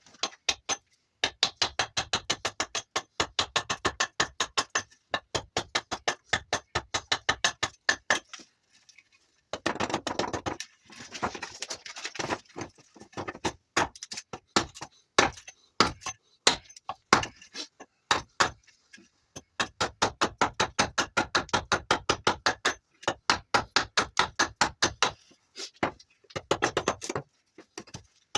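Rapid, regular strokes of a blade cutting into juniper wood, about six sharp clicks a second, in runs of several seconds broken by short pauses.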